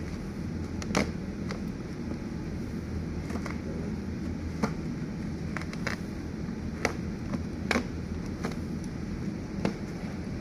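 A steady low hum with a few scattered light clicks.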